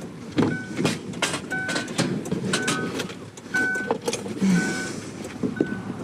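Metal scrap clattering and knocking as pieces are handled and loaded into a minivan, while an electronic chime beeps steadily about once a second.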